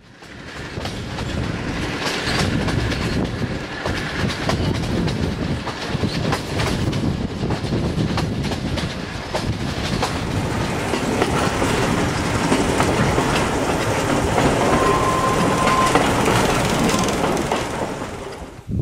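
Sri Lankan passenger train running along the track, heard from on board by an open carriage window: a steady rumble of the carriages with the clickety-clack of the wheels over the rail joints. It fades in at the start and fades out near the end.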